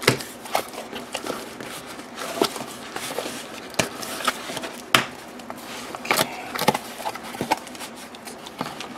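Cardboard shipping box being pulled open by hand: packing tape peeling and crackling, and cardboard flaps scraping and rustling, with many scattered sharp clicks and crinkles.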